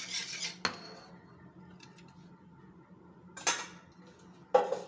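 Wire whisk stirring thin kadhi batter of yogurt, gram flour and water in a nonstick kadai, with a sharp clink of the whisk against the pan about half a second in. Two short clatters of utensils against the pan follow near the end.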